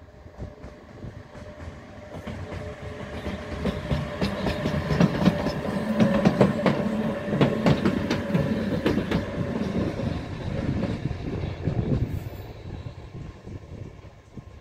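A single electric locomotive running light passes by. Its steady motor hum grows as it approaches, the wheels click over the rail joints as it goes past, and the sound then fades as it moves away.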